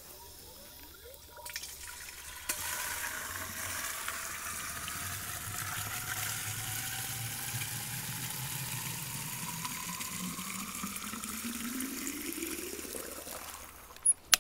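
Water pouring from a yard hydrant's spout into the tank of a DeWalt 2-gallon pump sprayer, the pitch of the filling rising steadily as the tank fills. It stops near the end with a couple of sharp knocks.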